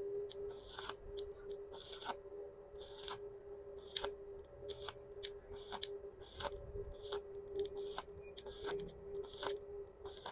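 Stick-welding arc on stainless steel with a stainless electrode at about 80 amps, crackling and sizzling in irregular short bursts with sharp pops, over a steady hum.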